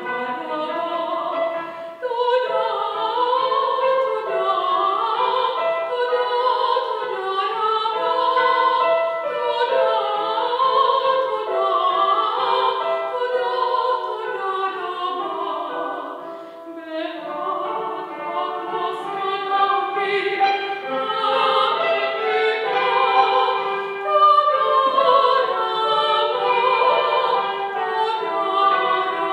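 A classically trained soprano singing with a wide vibrato, accompanied by a cimbalom, the struck and ringing strings sounding under the voice. The music drops briefly softer about halfway through, then swells again.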